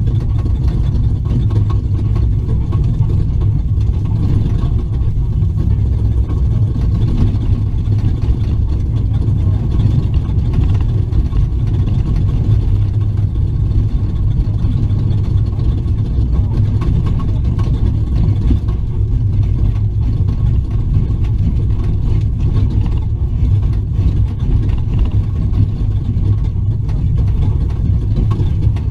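Ford Raptor off-road race truck driving at speed over desert terrain, heard from inside the cab: a loud, steady engine and road rumble.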